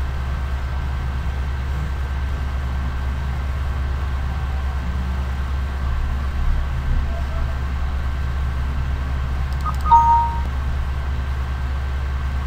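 Steady low hum with faint hiss from the recording setup, and a short two-note chime about ten seconds in, typical of a Windows alert sound.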